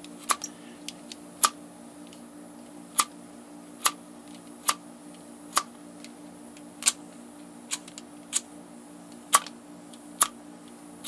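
Piezo igniter of a butane soldering iron clicking about a dozen times, roughly once a second, as the gas is sparked without yet lighting.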